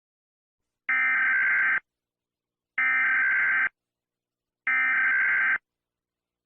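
Emergency Alert System SAME header: three identical bursts of digital data tones, each just under a second long and about two seconds apart. This is the encoded alert header that opens an EAS broadcast.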